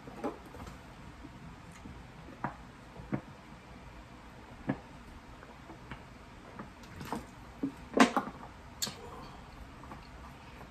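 A plastic water bottle being handled and drunk from: scattered soft clicks and crinkles from the bottle and its cap, and swallows. The loudest clicks come about seven to nine seconds in, while he drinks.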